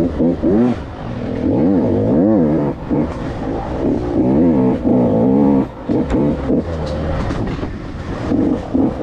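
KTM 85's two-stroke dirt bike engine revving up and down under a constantly opening and closing throttle while ridden, its pitch rising and falling about once a second, with a brief drop in power a little before six seconds in.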